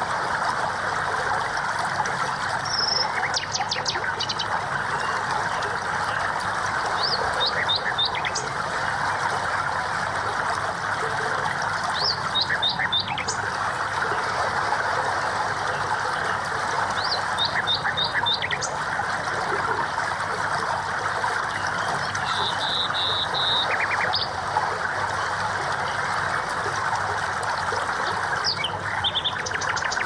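Birds chirping in short phrases of quick repeated high notes every four to five seconds, over a steady rush of running water.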